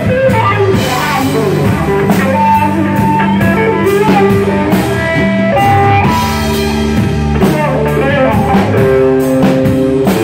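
Live rock band playing loud: Stratocaster-style electric guitar, bass guitar and drum kit, with steady cymbal strokes and sustained, bending guitar notes.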